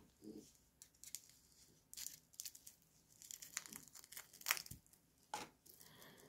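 Scissors snipping and packaging crinkling and tearing as a new metal watch bracelet is unwrapped: a scatter of small sharp snips and rustles.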